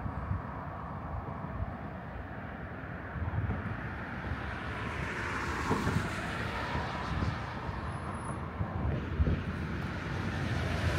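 City street traffic noise, swelling and easing as a vehicle passes about halfway through, with wind rumbling on the microphone.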